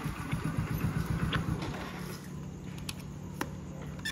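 Motorcycle engine running on the road. It turns quieter and steadier from about two seconds in, as if slowing to an idle.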